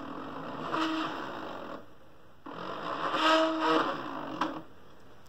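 Stepper motor on a SteppIR controller's test jig running with a steady whine as the director channel is stepped in test mode. It stops about two seconds in, starts again half a second later, and stops near the end with a click. It sounds good and strong, a sign that the replaced stepper-motor driver chip works.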